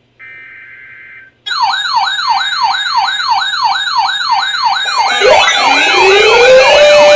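A brief burst of electronic data tones, typical of an Emergency Alert System header, then a siren that sweeps fast up and down about three and a half times a second. From about five seconds in, slower siren sweeps layer over it and it grows louder.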